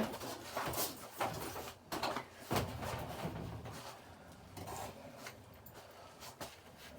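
Large plastic TV back cover being moved aside: a handful of scrapes and knocks in the first few seconds, then quieter handling noise.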